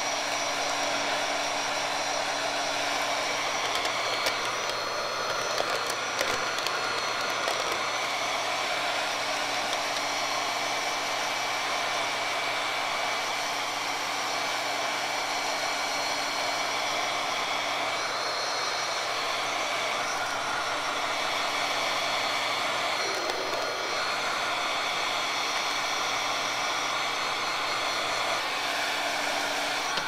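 Heat gun blowing steadily, a rush of air with a steady hum from its fan motor, as it shrinks sublimation shrink wrap tight around a mug.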